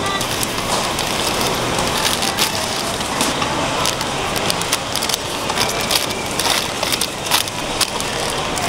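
Busy street-market background noise: a steady hubbub dotted with frequent, irregular sharp crackles and clicks.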